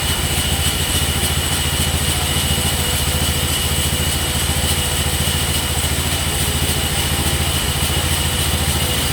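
An engine running steadily at an even speed, a constant low drone with a faint steady whine above it.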